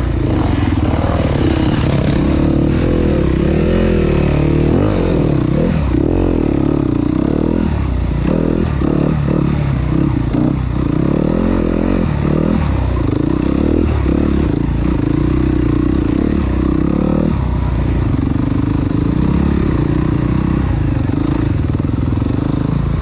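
Enduro dirt bike engine running under load on a rocky trail, its revs rising and falling again and again as the throttle is worked.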